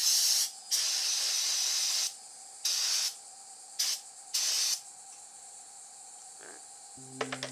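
Aerosol can of brake cleaner spraying valve springs in a series of hissing bursts: one longer spray of about a second and a half, then several short ones. Music starts near the end.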